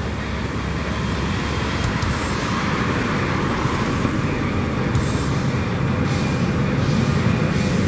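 Jet engines of a Boeing 757-200 running as the airliner moves along the runway: a steady noise that grows slowly louder.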